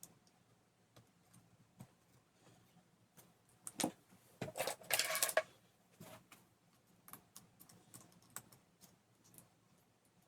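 Small plastic and metal laptop parts and tools clicking and tapping as they are handled and fitted, with a denser, louder rattle of clicks about four to five and a half seconds in.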